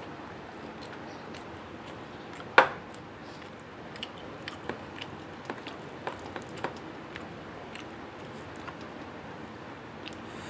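Eating rice and chicken curry by hand: fingers mixing and squishing the rice and gravy on a plate, with chewing and small clicks. One sharp knock about two and a half seconds in is the loudest sound.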